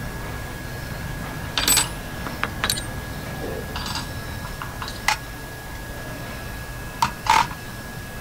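Small steel parts of a dismantled oil pressure regulator, a spring, valve and circlip, clinking against an aluminium tray as they are handled: a scatter of sharp metallic clinks, the loudest pair near the end.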